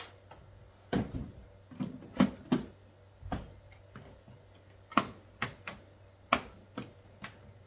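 Hard plastic parts of a Hart stack-system toolbox knocking and clicking as a removable tray is set back into the box and the pieces are handled: about a dozen sharp knocks at uneven intervals.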